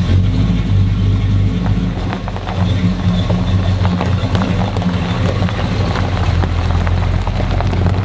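A Chevrolet square-body pickup's engine running at low speed as the truck rolls slowly forward, with tyres crunching over gravel.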